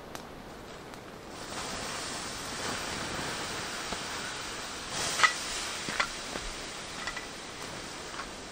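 Wood fire burning down in a fire stand: a steady hiss with a few sharp pops and crackles, the loudest about five and six seconds in.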